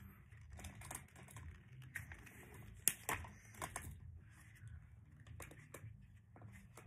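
Hard plastic toy track pieces clicking and clattering as they are handled, with irregular small knocks and a sharper click about three seconds in.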